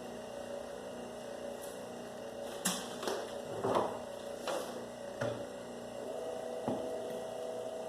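A steady hum with about six scattered sharp clicks and knocks as copper wire is worked through a wire stripper. The hum grows slightly louder about six seconds in.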